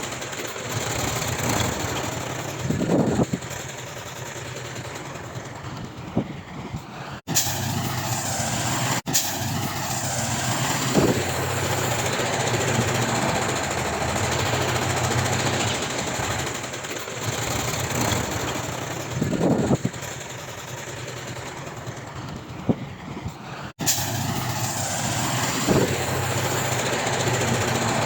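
Heavy diesel earthmoving machinery running steadily, with brief dropouts where the sound cuts.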